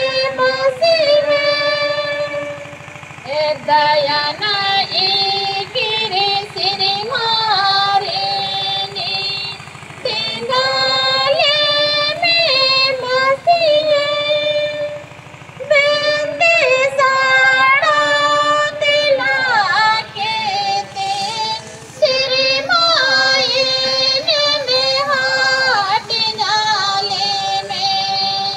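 A woman singing a hymn into a microphone, her voice amplified through loudspeakers. She sings line by line, with short breaks between the phrases.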